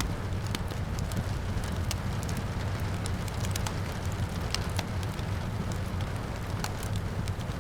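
Wood fire crackling, with irregular sharp pops several times a second, over a steady rushing background of rain and a low rumble.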